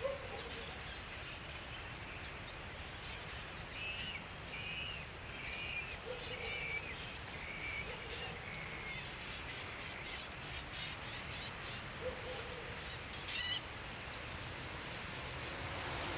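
A flock of starlings calling over a steady hiss as the birds wheel before going to roost. Short falling chirps come one after another through the middle, with scattered sharper, higher calls.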